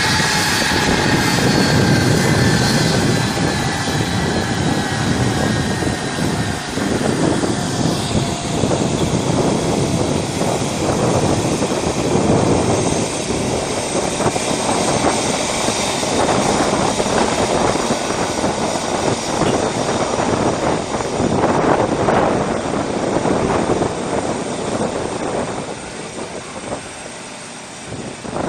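Boeing 757's twin jet engines running at taxi power: a steady rushing noise with a high whine that fades out after the first several seconds, getting quieter near the end as the jet turns away onto the runway.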